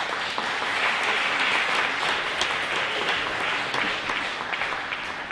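Theatre audience applauding, the clapping swelling quickly at the start and slowly fading toward the end.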